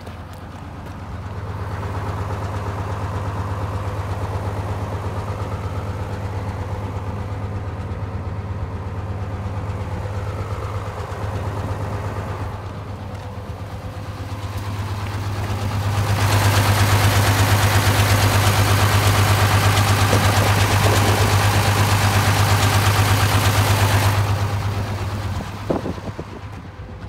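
Mitsubishi Aero Midi bus's 6D17 inline-six diesel engine idling with a steady low hum. It grows louder, with an added hiss, for about eight seconds in the second half, then drops back.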